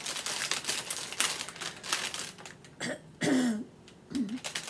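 Plastic cookie packaging crackling and crinkling as a pack of Oreos is opened. It stops after about two and a half seconds and is followed by a short cough-like vocal sound.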